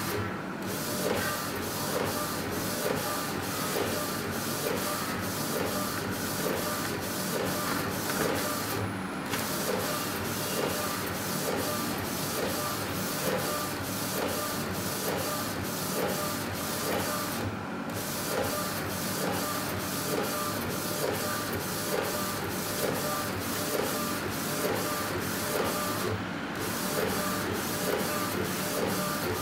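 Epson inkjet printer converted to an A4 flatbed, its print head carriage shuttling back and forth about twice a second while printing onto a T-shirt. There is a brief break roughly every nine seconds.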